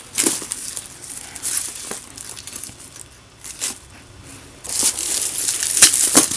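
Plastic packing wrap crinkling in irregular bursts as it is handled and pulled off a new leather bag, with the busiest, loudest crinkling near the end.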